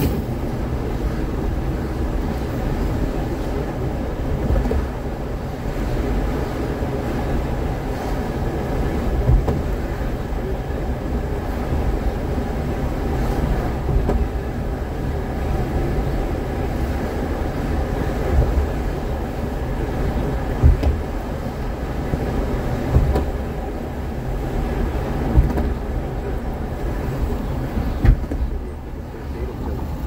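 Road noise of a car driving in slow traffic, heard from inside the cabin: a steady low rumble of tyres and engine, with a few brief thumps.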